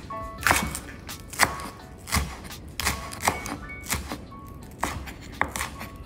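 Background music with a knife chopping food on a cutting board: a string of sharp, irregularly spaced chops.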